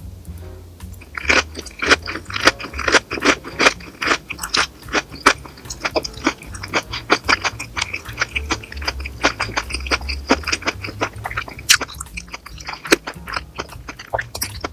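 Close-up crunchy chewing of food: a steady run of crisp crunches, several a second.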